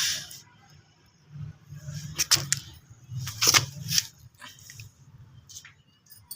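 A handful of sharp clicks and taps, bunched about two seconds in and again about three and a half seconds in, over a faint low hum.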